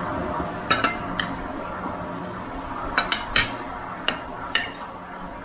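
Metal cutlery clinking against dishes: about eight sharp clinks in irregular clusters, a few near the start, a group about three seconds in and two more after.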